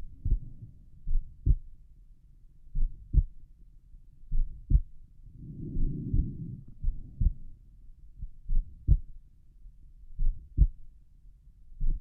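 Human heartbeat heard over the pulmonic valve area at rest: slow, paired lub-dub thuds about every one and a half to two seconds. About six seconds in there is a second-long rushing sound.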